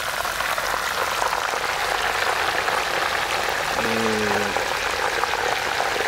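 Hot oil sizzling steadily around whole chickens deep-frying in a large pan, a dense crackling hiss. A short low hum, like a voice, comes in about four seconds in.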